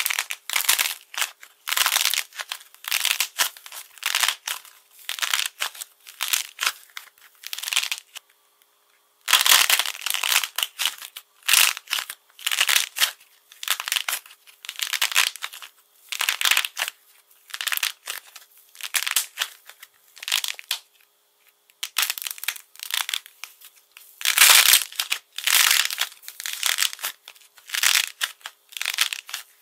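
Hardened coating on soft clay cracking and crinkling as hands squeeze and knead it: bursts of crisp crunching, one squeeze after another, with a pause of about a second some eight seconds in.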